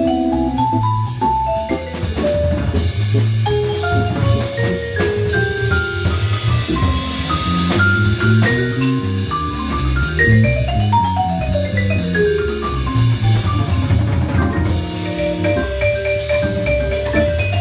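Live jazz: a vibraphone plays fast runs of notes that sweep up and down, with a drum kit keeping time underneath.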